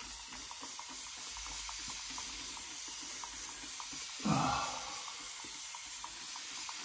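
Tap water running steadily into a basin, with one brief louder sound about four seconds in.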